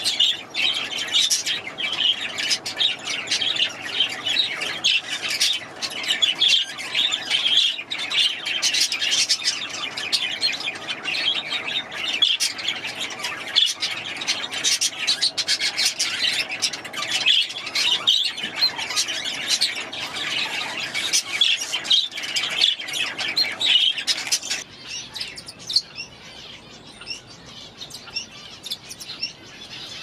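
Many caged parakeets chirping and calling over one another in a dense, constant chorus. About 25 seconds in, it drops to quieter, sparser chirps.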